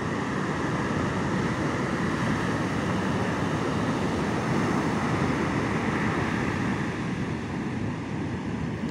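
Heavy ocean surf breaking and rushing up the beach in a steady roar.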